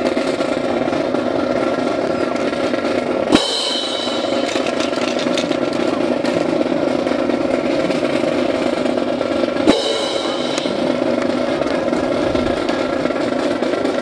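A continuous drum roll, with two sharp knocks about six seconds apart, each followed by a brief high ringing.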